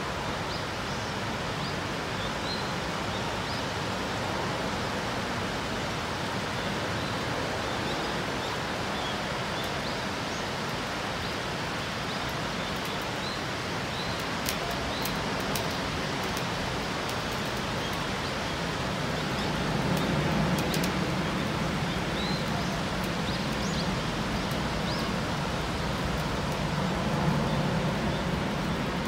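Steady hiss of falling rain, with scattered short bird chirps. A low rumble swells for a few seconds around the middle and again near the end.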